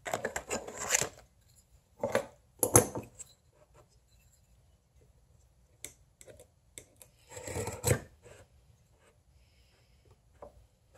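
Knocks and scrapes of a small wooden block being handled and set against bench dogs on a wooden workbench, the loudest knock a little under 3 seconds in. Later a steel marking knife scrapes along a layout line on the block, with a few light clicks and a longer scrape near the end.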